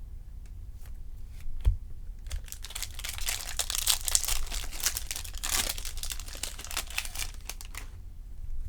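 Wrapper of a Topps baseball card pack being torn open and crinkled, a dense crackling rustle lasting about five seconds, after a single knock about two seconds in.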